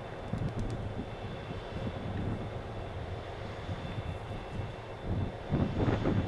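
Class 57 diesel locomotive running as it hauls a train slowly past, a steady low engine rumble with a faint high whine. About five seconds in, the noise grows louder and rougher.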